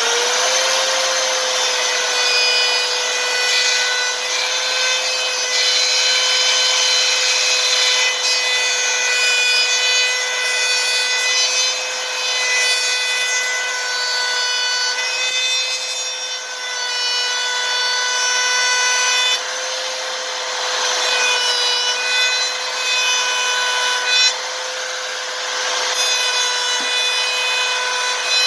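Handheld high-speed power tool spinning up, then running at a steady high whine while cutting out the rear deck's speaker opening so the new speaker fits.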